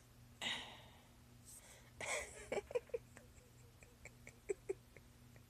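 A woman with persistent hiccups breathing out, then a few short, quiet catches in her throat between hiccups.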